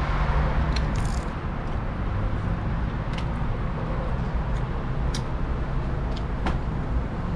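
Steady low rumble of road traffic and wind on the microphone, with a few short clicks scattered through it.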